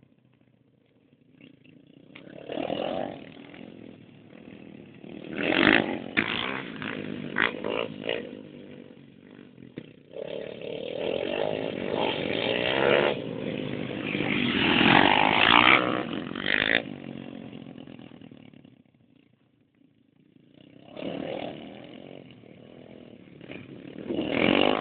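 125 and 140 cc pit bike engines revving hard as the bikes race past, rising to loud peaks and fading away. A long stretch of close, loud running is followed by a brief lull, then another bike approaches and passes near the end.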